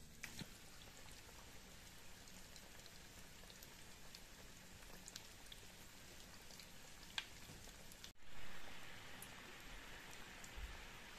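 Breaded potato croquettes deep-frying in a pot of hot oil: a steady crackling sizzle with scattered small pops. There is a brief break about eight seconds in, and after it the sizzle is louder.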